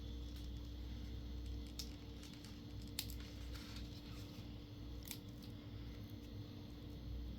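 A few faint, light clicks and taps of small phone parts being handled, as a replacement battery is set into a phone's housing, over a steady low room hum.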